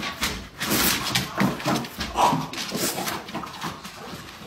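A French bulldog whining and whimpering in short, irregular bursts, excited by a squirrel outside the glass door. The whines grow weaker toward the end.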